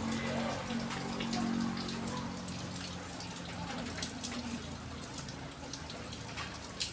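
Newborn puppies squirming against each other on towels, with many small scattered clicks and soft rustles. A low steady hum is heard during the first couple of seconds.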